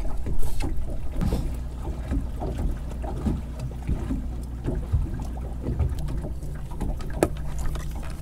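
Boat's outboard motor running at slow trolling speed, a steady low hum, with irregular small knocks and splashes of water against the hull.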